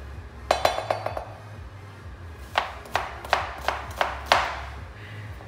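Kitchen knife chopping vegetables on a cutting board: a quick flurry of strokes about half a second in, then six single chops about three a second.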